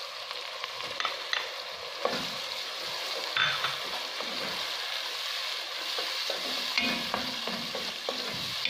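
Onions frying in oil in a pot, sizzling steadily, as tomato is tipped in and stirred with a wooden spoon; the spoon gives short scrapes and knocks against the pot.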